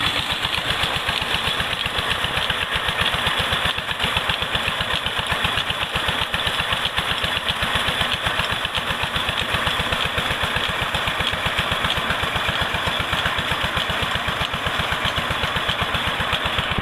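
Tubewell diesel engine running steadily with an even, rapid beat as it drives the irrigation pump.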